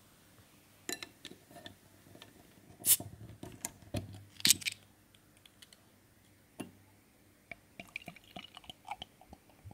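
A glass beer bottle of IPA being opened: light glass clinks, then two sharp clacks of metal on glass as the crown cap is levered off a little before the middle. Near the end the beer pours into a stemmed glass with a faint fizzing crackle of bubbles.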